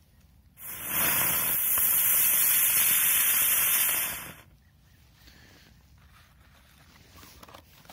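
A small Joker Fireworks 'rose' ground firework burning with a loud, steady hiss. It starts about half a second in and dies away about four seconds later, with no bang.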